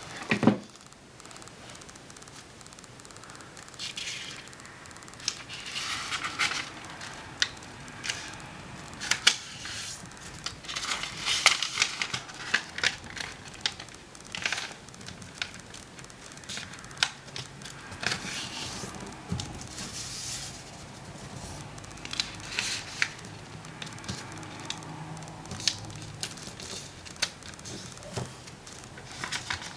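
A square of origami paper being folded by hand. It rustles and crinkles, with irregular sharp crackles as the folds are pressed and creased. A single dull thump comes right at the start.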